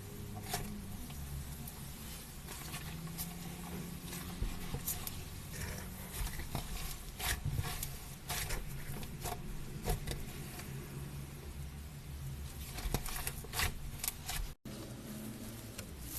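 Slime being squeezed and pressed by hand, giving irregular sharp clicks, pops and squelches over a low steady hum, with a brief dropout near the end.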